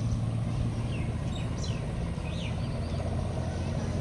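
A steady low engine hum, with a few birds chirping in the first half.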